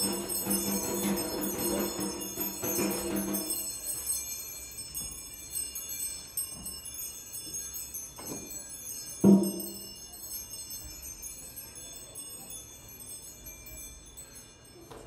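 Snare drum played in a free, improvised way. It opens with a dense run of strokes, the drum ringing with a jingling, high metallic shimmer over it, which stops about three and a half seconds in. Sparse single strikes follow, the loudest about nine seconds in and another at the very end, with faint high ringing between them.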